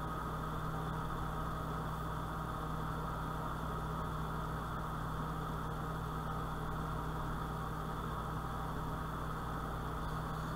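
A steady electrical hum with a hiss over it, unchanging and with no other events.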